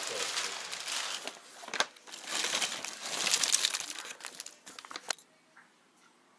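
Crinkling and rustling of packaging being handled, in uneven bursts with a sharp click near two seconds in, stopping about five seconds in.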